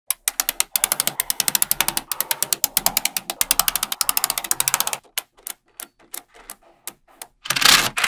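Small magnetic balls clicking against each other as blocks of them are handled and snapped into place: a rapid run of sharp clicks for about five seconds, then sparser clicks, ending with a louder scraping rasp.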